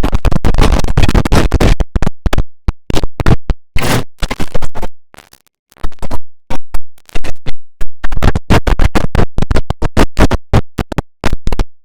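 The OS/2 Warp 3 shutdown sound, digitally chopped into rapid stuttering fragments with a record-scratch-like effect. It cuts in and out many times a second, and drops out for about a second around the middle.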